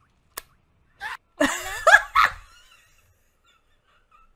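Cartoon characters screaming together in a short burst with wavering pitch, cut off abruptly after about a second.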